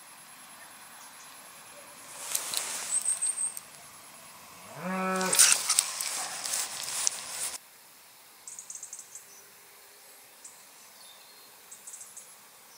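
Water splashing and churning at the surface close to the microphone, in two bouts, the second louder, which cuts off abruptly. A short pitched call sounds during the second bout, and faint high ticking of insects follows.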